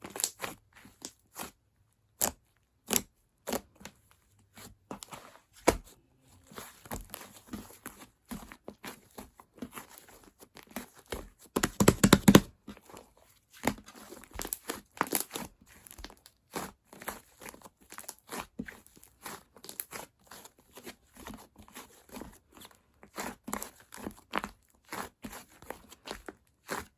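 Thick whipped cream crackling and squishing as it is worked. It comes as irregular short clicks and crackles, with a dense, louder stretch about twelve seconds in.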